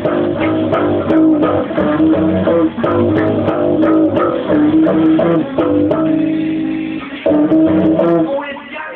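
Electric bass played through a guitar amplifier, which makes it sound weird: a riff of repeated plucked notes, with one note held about six seconds in before the riff picks up again.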